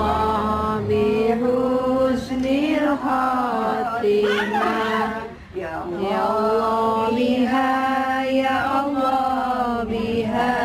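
A group of voices chanting an Islamic prayer in long, drawn-out sung phrases, with a brief pause for breath about five and a half seconds in.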